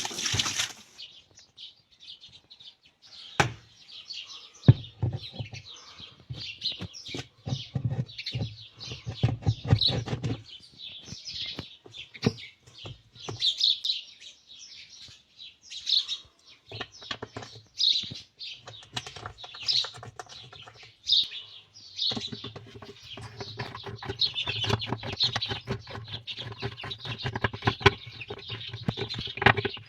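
Birds chirping repeatedly in short high calls, with scattered clicks and knocks.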